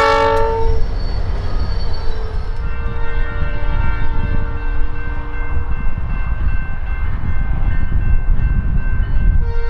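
Montana Rail Link freight locomotive's air horn blowing a chord, cut off about half a second in. A low rumble follows, and the horn sounds again more faintly from about two seconds later, growing louder at the very end.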